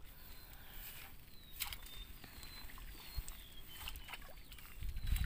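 Faint water sloshing and splashing, growing louder near the end, with a few sharp clicks and a string of short, high, falling chirps.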